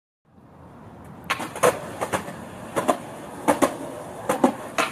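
Skateboard rolling on concrete with a steady rumble, its wheels clacking in quick pairs about every three-quarters of a second as they cross the joints in the pavement. The sound fades in at the start.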